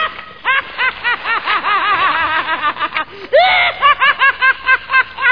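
Maniacal cackling laughter: a rapid string of high-pitched 'ha' syllables, about four or five a second, broken by a longer drawn-out whoop about three seconds in.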